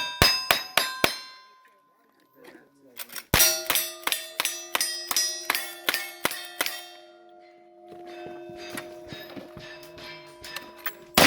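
Gun shots striking steel plate targets, each hit leaving the steel ringing: a quick string of about five near the start, then about ten more at roughly three a second from about three seconds in. The plates' ringing hangs on after the last of these, and one more loud shot comes at the very end.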